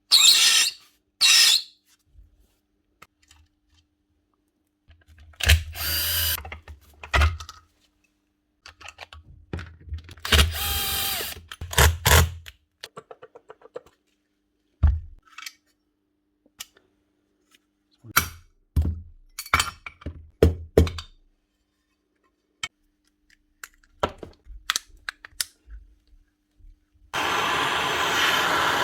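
Old Makita electric sander switched on and run in short bursts of one to two seconds, three times, with clicks and knocks of the tool being handled in between. The title says its bearings are bad and its base pad is worn out.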